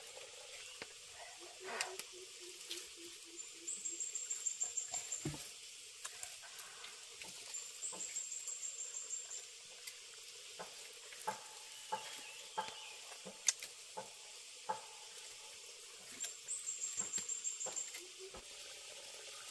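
A very high-pitched, fast trill sounds three times, several seconds apart, over a faint background with scattered small clicks and taps. About two seconds in there is a shorter, lower run of pulsed notes.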